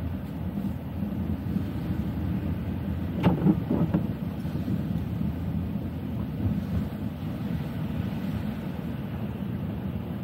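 Steady low rumble of a car driving, heard from inside the cabin, with a brief knock or clunk about three seconds in.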